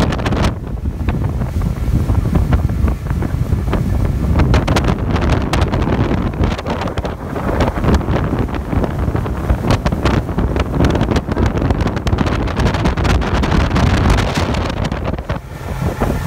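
Strong wind buffeting the microphone in irregular gusts aboard a small open center-console motorboat under way, a loud, dense rumble that buries the boat's motor.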